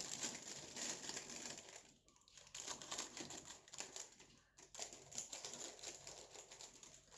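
Faint crinkling and rustling of food packaging being opened and handled, in irregular crackles with a couple of brief pauses.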